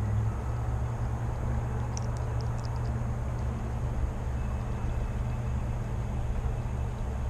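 Steady low drone of distant engine-driven machinery, with a few faint high ticks about two seconds in.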